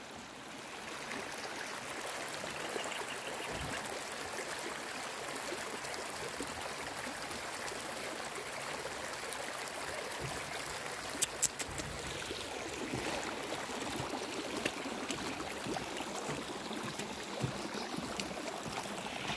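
Muddy rainwater runoff rushing down a dirt-road channel over stones, a steady rush of flowing water. A few sharp clicks come a little past halfway.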